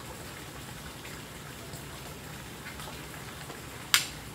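Steady watery hiss, with a single brief sharp high-pitched swish-click about four seconds in as a spinning rod and reel are handled.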